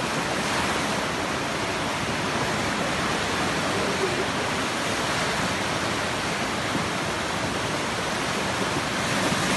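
Steady rushing of a muddy river in flood, its swollen current running fast and turbulent through the channel.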